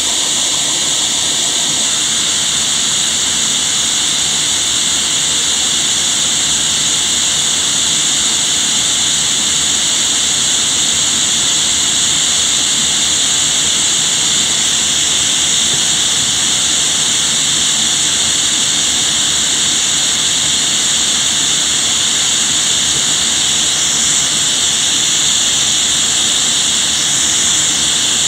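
Vacuum cleaner running steadily with a loud, airy high-pitched whine, its hose nozzle sucking air through a Lego vacuum engine to drive it.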